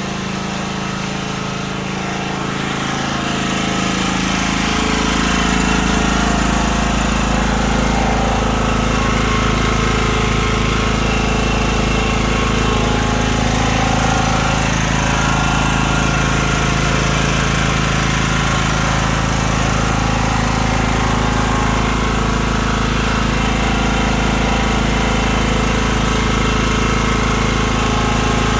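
A 3 kVA petrol generator's engine running at full 3000-watt load. It grows louder and deeper over the first few seconds as it takes up the load, then runs steady.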